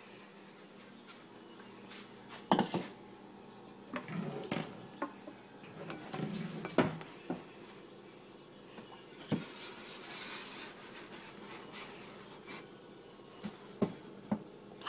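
A bowl and dishes handled on a kitchen counter: scattered clinks and knocks, with a short rustle about two-thirds of the way through.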